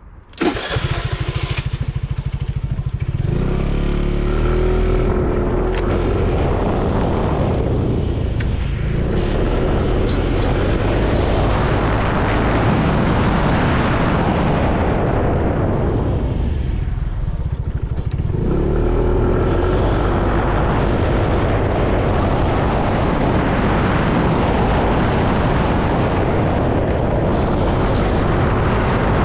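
A small motorbike engine starts about half a second in and idles briefly. It then revs up as the bike pulls away and keeps running at riding speed, with wind rushing over the mounted camera's microphone. Twice the engine eases off and picks up again.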